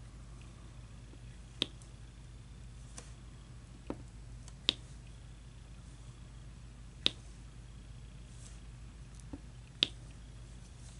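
Sharp, separate clicks, about six, spaced one to three seconds apart, as diamond-painting drills are pressed onto the canvas with an applicator pen. A steady low hum runs underneath.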